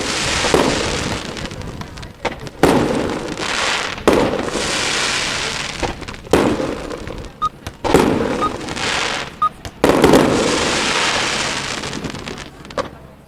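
Aerial fireworks display: shells bursting with a sharp bang every second or two, each followed by a long hissing crackle that fades as the next one goes off.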